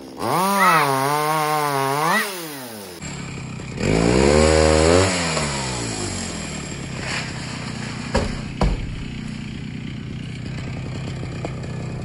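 Two-stroke petrol chainsaw cutting through a coconut palm trunk at full revs, its pitch wavering under load. It revs once more and drops to a steady idle, with two sharp knocks about eight seconds in.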